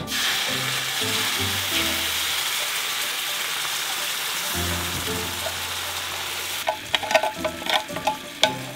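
Coconut milk poured into a hot frying pan of spice-coated pieces, sizzling loudly; the sizzle starts abruptly and dies down after about six and a half seconds. A run of sharp clicks and knocks from the pan follows near the end.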